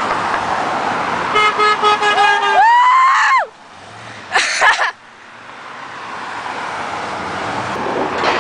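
A passing car sounds its horn in a quick run of short toots over its road noise, and a loud, high, wavering squeal of excitement follows.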